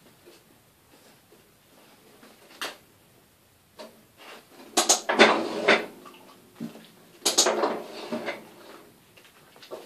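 Metal clanking and clattering against metal, with a single click early on, then two bouts of clatter about halfway through and again a couple of seconds later.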